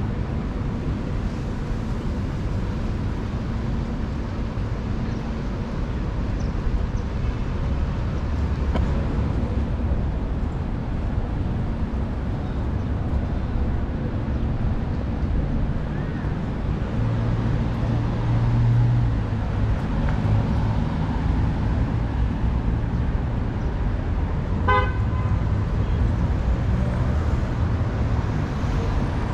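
Steady low rumble of city road traffic, with one short car horn beep near the end.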